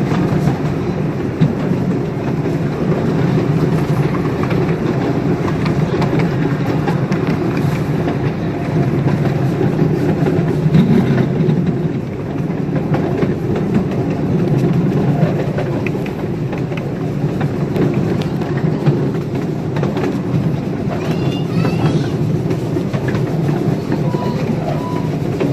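A ride-on live steam train running along the track, heard from aboard the cars: a steady rumble of wheels on rail with occasional light clicks.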